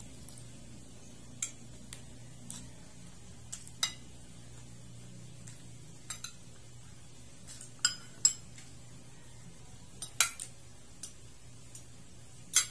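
Metal spoon and fork clinking and scraping against a dinner plate while food is scooped up, in irregular sharp clinks, a few close together, the loudest about eight seconds in and near the end.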